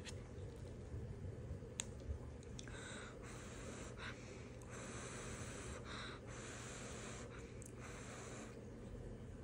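Metal chopsticks click a few times against noodles, kimchi and a foam cup-noodle lid. Then come several stretches of soft hissing as the noodles are lifted.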